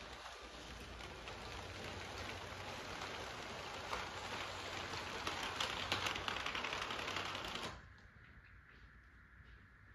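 Lego freight train rolling over plastic Lego track, a dense clicking rattle of wheels on the rails and joints that stops suddenly about three-quarters of the way through as the train comes to a halt.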